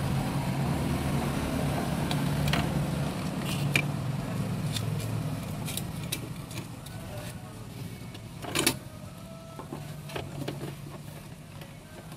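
A fuel pump module being handled and seated back into the fuel tank opening gives scattered light clicks and knocks of plastic and metal, with one sharper click about eight and a half seconds in. A steady low hum runs underneath and fades about halfway through.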